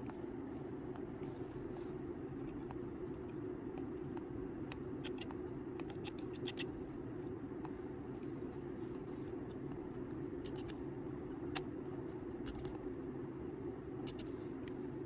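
Light metallic clicks and ticks of tweezers pinching and tapping a rebuildable atomizer's coil as it is fired and glows, in scattered clusters with one sharper tick near the end, over a steady low hum.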